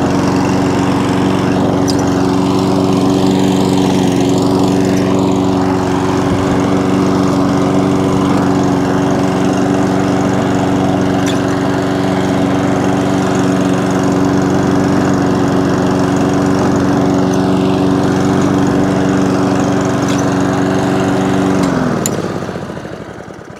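Einhell self-propelled petrol rotary lawn mower running steadily as it drives across the grass on its repaired drive wheels. About 22 seconds in the engine is cut and runs down to a stop.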